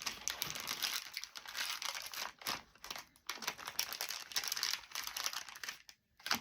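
Plastic packaging crinkling as it is handled, a continuous crackle broken by a few short pauses.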